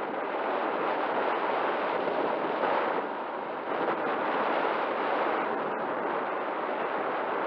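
Airflow rushing over the onboard action camera's microphone as a Volantex Phoenix 2400 RC glider soars with its motor off. The steady rush eases for a moment a little past halfway, then picks up again.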